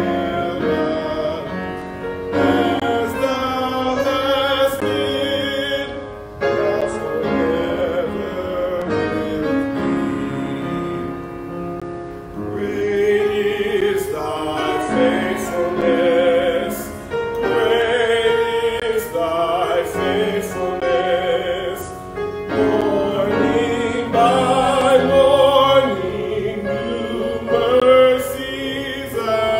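A hymn sung with vibrato over piano accompaniment, in phrases a few seconds long with short breaths between them.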